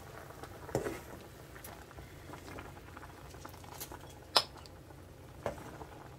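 Tableware clinking at a meal: a few light taps of cutlery against bowls, the sharpest one about four seconds in, over a low steady hum.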